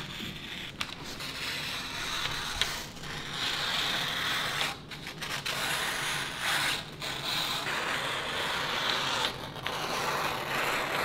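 Scissors cutting through a large sheet of paper (a sink cutout template) in long continuous cuts, with the paper rustling, broken by a few short pauses.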